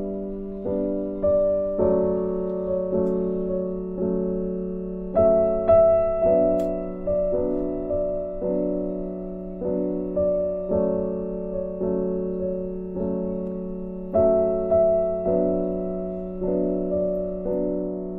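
Background music: a gentle piano or keyboard piece, notes struck at an even pace of about two a second over a held low tone.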